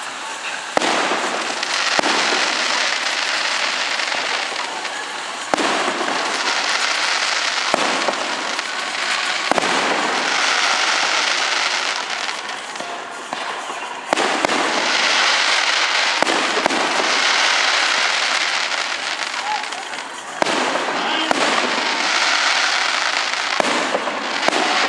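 Fireworks display: a string of sharp bangs as shells burst, about eight in all, each followed by several seconds of dense crackling.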